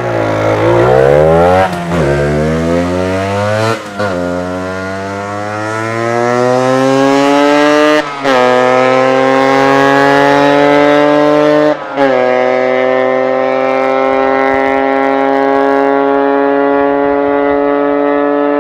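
Yamaha DT125's two-stroke single-cylinder engine accelerating hard through the gears: the pitch climbs in each gear and drops briefly at four gear changes, then holds fairly steady for the last several seconds. It breathes through an aftermarket Athena end silencer on the original, burnt-out expansion chamber.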